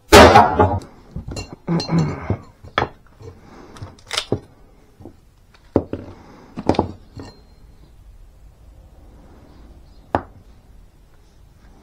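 Kings County camp axe chopping down through a knotty piece of wood on a wooden chopping round, one loud chop at the start. Then a run of lighter knocks and clatters as the split pieces and the axe are handled on a concrete floor, and one more sharp knock about ten seconds in.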